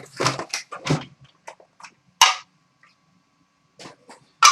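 Hockey card pack wrapper crinkling and tearing open, with the cards rustling as they are handled: irregular short crackles, sharpest about two seconds in and near the end.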